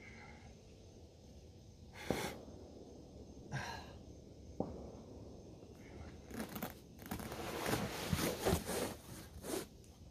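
A boulderer's sharp breaths with the scuff and scrape of climbing shoes and hands on rock while pulling through the moves. There are a few separate bursts and a sharp knock in the first half, then a denser run of scraping and breathing from about six seconds in until near the end.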